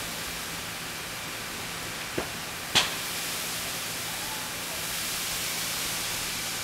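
Burning vehicle workshop giving a steady rushing noise, broken by two sharp cracks about half a second apart near the middle, the second much louder: the small explosions that kept going off inside the burning building.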